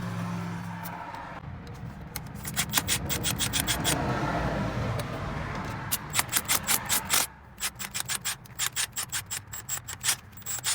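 Hand tool working on a car: quick runs of sharp metallic clicks and rasping strokes, about three strokes a second in the second half, over a low hum that drops away about seven seconds in.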